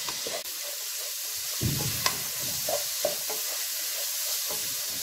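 Spiced bitter field beans sizzling in oil in a pan while a wooden spatula stirs and scrapes through them, with a couple of light clicks of the spatula on the pan.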